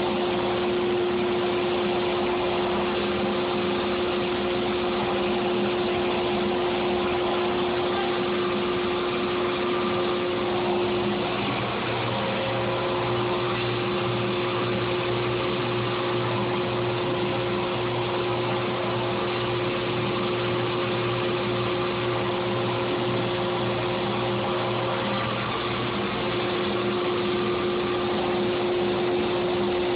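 EZ CNC Model 4896 router running: a steady machine hum with a held high tone. The tone drops out briefly about eleven seconds in and again near twenty-five seconds.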